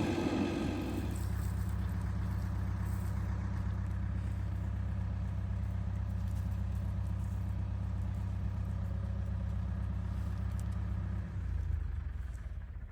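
An engine running steadily at a low idle after dropping from a higher, louder speed about a second in. Its sound changes about eleven seconds in and then dies away, as if the engine is shut off.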